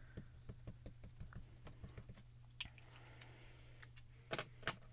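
Small Altenew dye ink cube dabbed again and again onto clear photopolymer stamps, making a run of faint light taps, several a second. A louder double click comes near the end.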